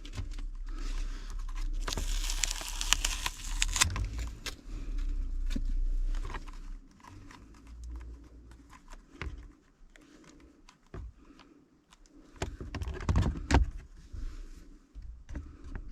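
Hands working plastic car interior trim, the dashboard air-conditioner panel: irregular clicks, rattles and rustling, busiest in the first few seconds and again near the end.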